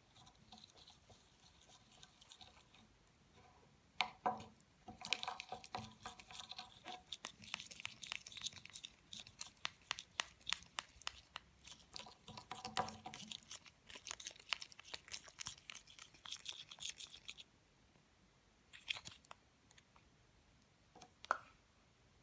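Ingredients being prepared by hand: a long run of quick, crisp crunching clicks that stops abruptly, with a few separate knocks before and after. The sound is faint.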